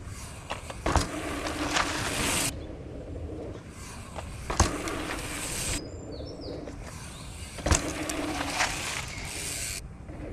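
Mountain bike being ridden over a dirt jump: tyre noise on packed dirt comes and goes in a few short takes that start and stop abruptly. Three sharp knocks come about a second in, midway and three-quarters through.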